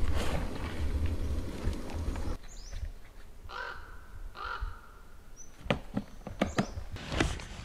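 A low rumbling, rustling noise close to the microphone for the first couple of seconds. Then a bird gives two harsh caws about a second apart, with a few short high chirps and some sharp clicks near the end.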